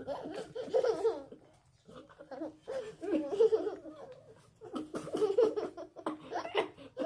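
A man and a young boy laughing in repeated bursts, with a short lull about a second and a half in, as they eat.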